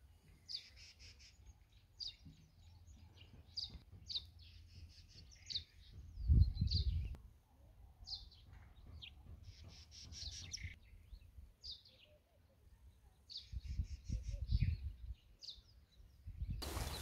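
Small birds chirping, short high calls every second or so. Two low rumbles of wind on the microphone come about six and fourteen seconds in.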